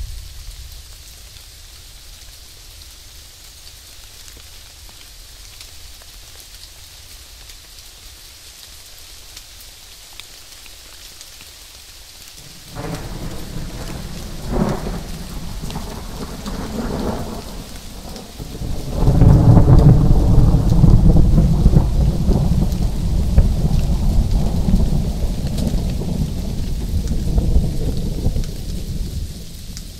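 Steady rain falling, then thunder: a rumble breaks in about halfway through, swells a few times, and gives way to a louder, long rolling peal that slowly fades toward the end.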